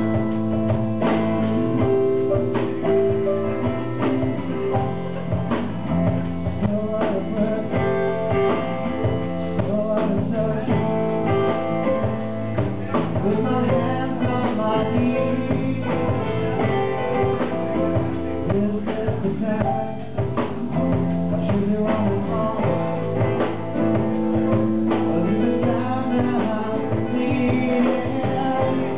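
Live band playing a folk-blues song, with guitar, piano, bass and drums and a man singing.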